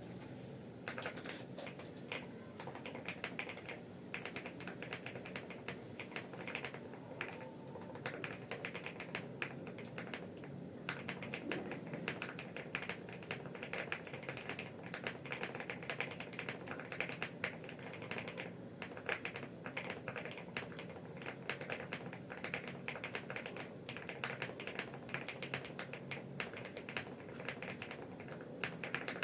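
Continuous typing on a mechanical keyboard fitted with stock, factory-lubed Gateron Silver Smoothie switches: a dense, steady stream of key clacks with only brief pauses.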